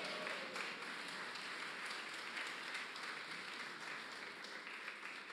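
Congregation applauding, the clapping slowly dying away near the end.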